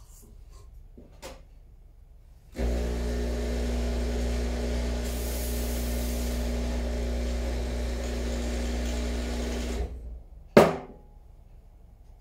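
Rancilio Silvia Pro espresso machine's vibratory pump humming steadily for about seven seconds, starting and stopping abruptly. A short, loud burst follows near the end.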